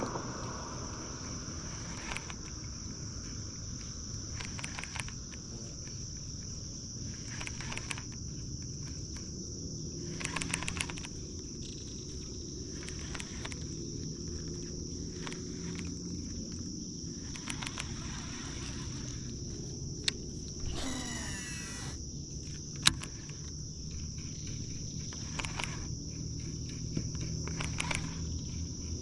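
Insects droning in a steady, high-pitched chorus, with scattered faint clicks. About two-thirds of the way through there is a brief sweeping noise, followed a second or so later by one sharp click.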